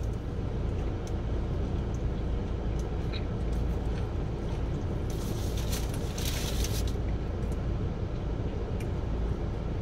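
Steady low rumble of a car running while parked, heard inside the cabin. A brief rustling hiss comes in about five seconds in and lasts about two seconds.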